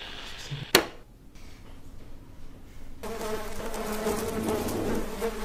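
A single sharp click about a second in, then a steady buzz from about three seconds in that cuts off suddenly at the end.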